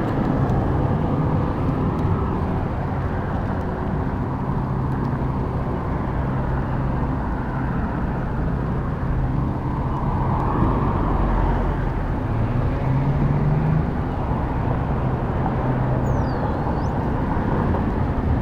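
A motorized bike's small CAG two-stroke engine running steadily under way, its pitch rising a little about two-thirds of the way through, over wind and road noise.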